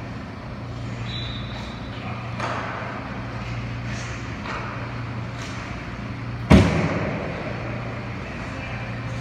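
Hockey stick and puck clacks on the ice, echoing in an indoor rink, with one loud sharp bang about six and a half seconds in that rings around the arena. A steady low hum runs underneath.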